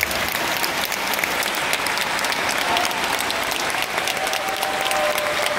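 Large audience applauding steadily, a dense sound of many hands clapping.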